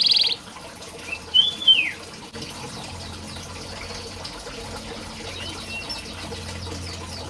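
Domestic canary song: a fast buzzy trill cuts off just at the start, and about a second later comes a single whistled note that rises and then falls. After that there is a steady soft hiss with a low hum, and a couple of faint chirps.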